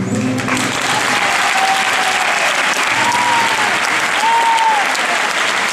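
Crowd in a large hall applauding steadily, with a few drawn-out voice-like calls rising and falling above the clapping.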